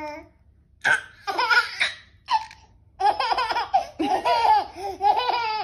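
Baby laughing in short bursts of giggles, which run together into a quick string of laughs over the last two and a half seconds.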